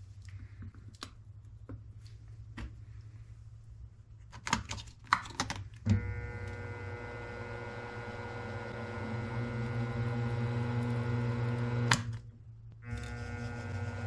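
Milling machine drilling into an aluminium block: a steady motor whine over a low hum starts about six seconds in and runs on, breaking off for about a second near the end. Before it come faint clicks and then a few sharp knocks and clicks.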